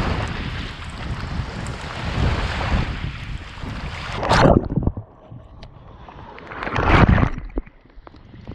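Strong wind buffeting the microphone over waves washing in. It drops off suddenly about halfway through, then another gust swells near the end.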